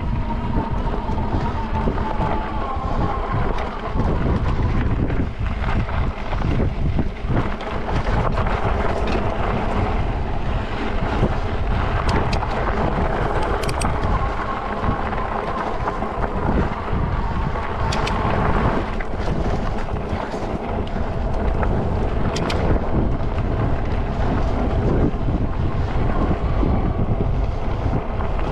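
Wind buffeting the microphone and tyre rumble from a fat-tire electric bike riding over a dirt and gravel trail, with the 750 W rear hub motor's thin whine rising and falling under power and a few sharp ticks from stones or bumps.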